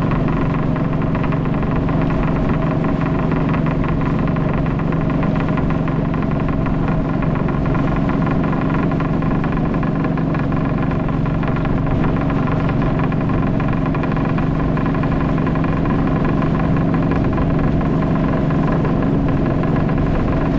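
Motorboat engine running steadily under way, at an unchanging pitch and level.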